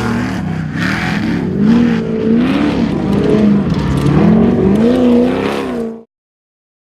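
Off-road race vehicle's engine revving up and down over and over as the throttle is worked, then cutting off abruptly about six seconds in.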